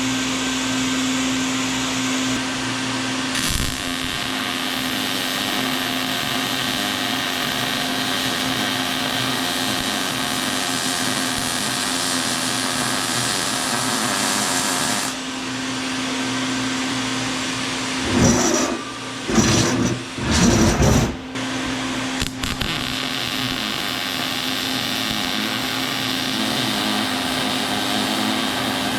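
A power tool running steadily with a hum and a dense hiss; the hum drops out about halfway through, followed a few seconds later by several loud, rough bursts.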